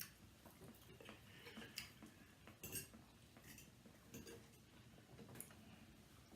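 Faint, scattered clinks and clicks of cutlery against dishes while eating, a handful of separate taps a second or so apart.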